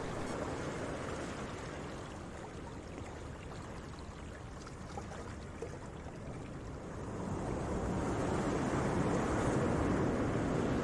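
Sea waves washing in with wind, a steady rushing that swells louder about seven seconds in.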